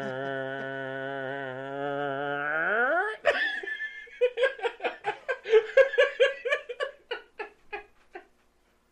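A person's voice holding one long, drawn-out note on a steady pitch for about three seconds, sliding up at the end, a mimicked noise; then laughter and giggling for several seconds, dying away near the end.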